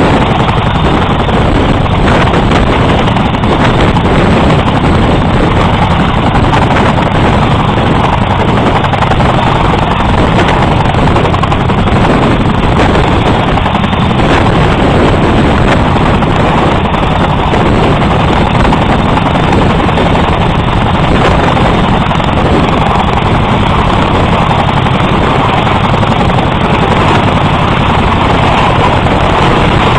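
CH-47 Chinook tandem-rotor helicopter hovering low overhead, its rotors and turbine engines loud and steady.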